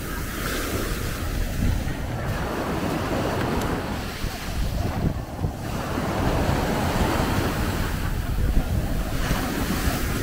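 Sea waves washing onto a sandy beach, the surf hiss swelling and fading, with wind buffeting the microphone.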